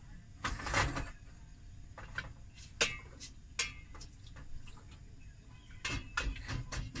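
Wooden spatula knocking and scraping against a stainless steel pot while stirring: light, irregular clicks and taps, a few coming close together near the end.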